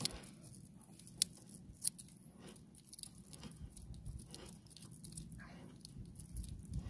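Fishing line being hauled in hand over hand after a strike: faint rustling and scraping of line through the hands, with two sharp clicks about one and two seconds in.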